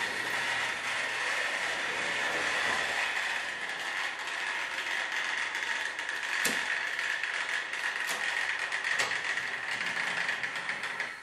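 Trix Express H0-scale model train running on the layout: a steady whirr of the locomotive's motor and gears, with three sharp clicks in the second half from the wheels on the track. The sound drops away near the end.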